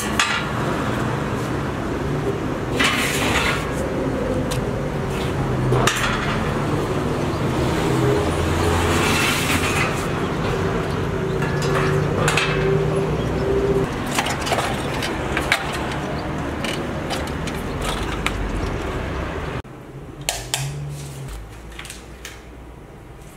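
Steady street noise with passing traffic, broken by several knocks and clatters as light wooden window frames are handled and leaned against a wall. Near the end it cuts to a quieter room with a few light clicks of small objects being handled on a glass desktop.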